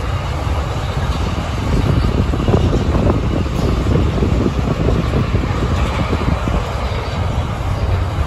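Container-laden flat wagons of a long intermodal freight train rolling past: a steady rumble of steel wheels on the rails with rattling clatter, loudest a few seconds in.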